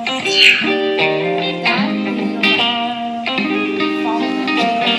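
Guitar-led background music with notes struck in a steady rhythm.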